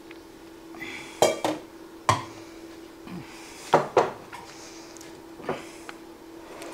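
A white ceramic canister with a bamboo lid being handled on a countertop, the lid lifted off and set back, with about six sharp knocks and clinks. The loudest come about a second in and around four seconds in. A faint steady hum runs underneath.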